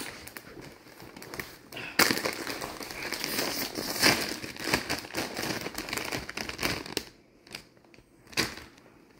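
Ruffles potato chip bag of metallized plastic film crinkling as it is gripped and pulled open at its sealed top. The crackling is loudest from about two to seven seconds in, with a few lighter rustles after.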